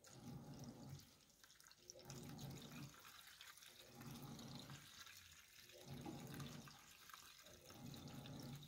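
Faint liquid being poured from a jug, here rust remover for soaking a chainsaw chain, coming in pulses about every second and a half.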